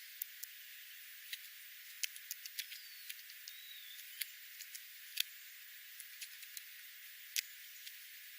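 Irregular sharp clicks and taps over a faint steady hiss, with two faint short bird chirps about three seconds in.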